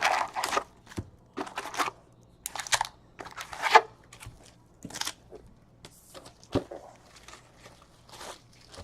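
Baseball trading cards being flipped through and handled: a run of irregular, short papery rustles and scrapes as card slides over card.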